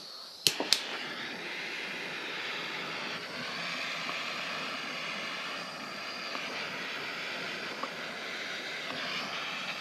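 Small handheld butane torch lit with two sharp clicks about half a second in, then its flame hissing steadily as it heats the heat-shrink sleeve on a crimped battery cable lug.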